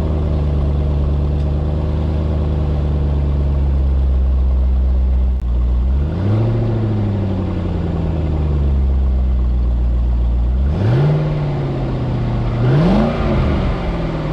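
2000 Chevrolet C5 Corvette's LS1 V8 on its stock exhaust, running at a steady high idle just after a cold start. About six seconds in it is revved briefly and drops back, near eleven seconds the revs are raised and held, and near the end come two more quick revs.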